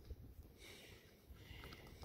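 Near silence: faint low background rumble with a few faint small clicks in the second half.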